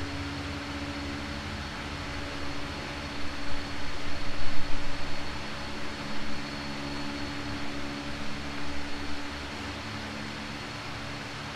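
Steady mechanical hum of fans and machinery with a faint high whine. A low rumble swells louder several times between about three and nine seconds in.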